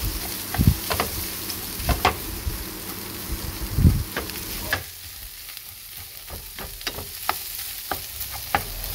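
Rice with shrimp and squid stir-frying in a frying pan: a steady sizzle, with a wooden spatula scraping and tapping against the pan many times as it breaks up and turns the rice.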